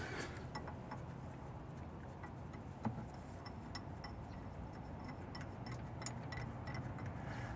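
Spanner being worked on a gearbox bell-housing bolt: light metallic clicks, a few a second, with one louder click about three seconds in.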